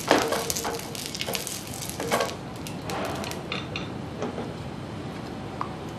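Oil sizzling on a hot dosa pan as a silicone brush spreads it. Brush strokes scrape and tap on the pan for the first two seconds, then a steady low sizzle carries on.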